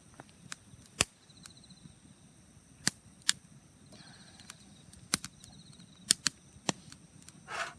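Wood campfire crackling, with sharp pops at irregular intervals, several of them close together.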